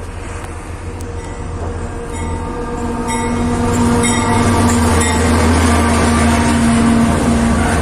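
MRS AC44i diesel-electric locomotive approaching and passing close by at the head of a freight train, its sound growing steadily louder, with a steady low tone from about two seconds in.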